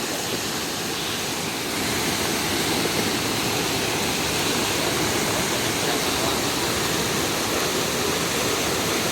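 Steady rushing of water in heavy rain and flooding, getting a little louder about two seconds in.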